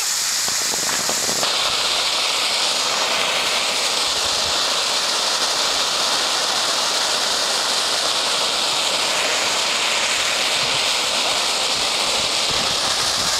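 Ground fountain firework spraying sparks with a loud, steady hiss that holds without a break.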